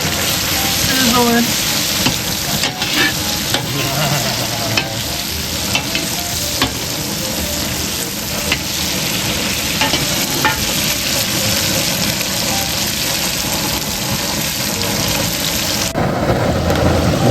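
Andouille sausage and bacon sizzling in hot bacon fat in a large pot: a steady frying hiss with scattered sharp pops, thinning near the end.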